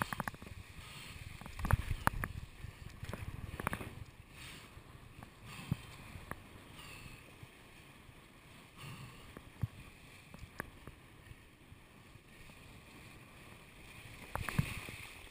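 Windsurf board skimming over choppy water: water slapping and splashing against the hull, with a run of sharp knocks in the first few seconds and a quieter steady rush of water afterwards, building again near the end as spray comes off the board.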